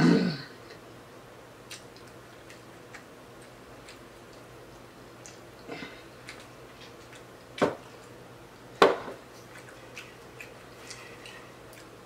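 Scattered sharp clicks and knocks from someone eating at a table, the two loudest about seven and a half and nine seconds in, with a short louder sound right at the start.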